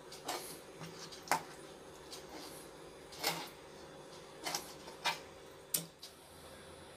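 Knife cutting and scraping a small sankara fish on a wooden cutting board: about six irregular strokes, some sharp taps of the blade on the board and some short scrapes, over a faint steady hum.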